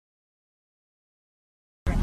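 Dead silence with an empty audio track; just before the end a loud low rumble cuts in suddenly.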